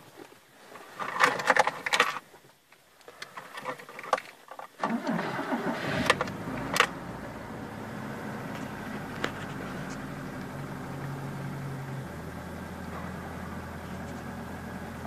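Polonez Caro 1.6 GLI's 1.6-litre OHV four-cylinder being started: a key rattle and clicks, a pause, then the starter cranks about five seconds in and the engine catches. It then runs at a steady idle whose note steps lower near the end.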